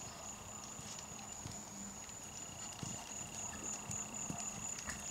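Horse trotting on a sand arena: soft, muffled hoofbeats, over a steady high-pitched whine.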